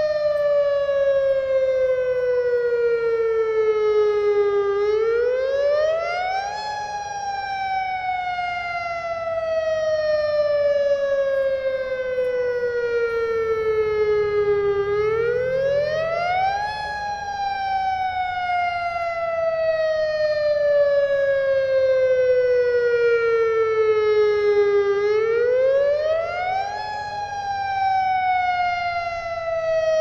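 AHAB tsunami warning siren, a tower of stacked disc-shaped horns, sounding its wailing alert tone for a tsunami evacuation, here as a test. The pitch climbs quickly over about two seconds, then sinks slowly for about eight, three times over.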